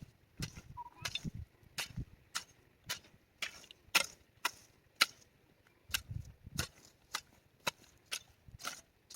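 Sharp, evenly spaced knocks or strikes, about two a second, like a hand tool hitting something over and over.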